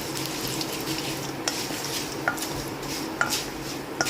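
Metal spoon stirring whole spices roasting in oil in a pan, clinking against the pan four times, each clink with a short metallic ring, over a steady low hiss.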